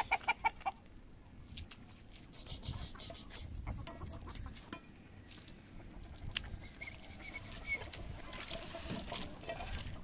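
Chickens clucking: a quick run of loud clucks in the first second, then scattered softer clucks and clicks over a low rumble.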